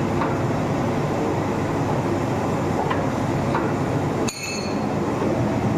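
Puffed-rice (muri) roasting machine running with a steady mechanical rumble as its stainless-steel drum turns, puffed rice rattling and pouring out of its mouth. There is a brief high metallic clink about four seconds in.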